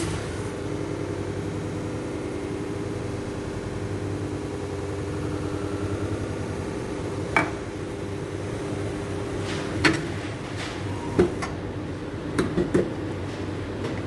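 Steady machine hum of café equipment, with sharp knocks and clatters in the second half as cups and barista tools are set down and handled on the counter, a quick cluster of them near the end.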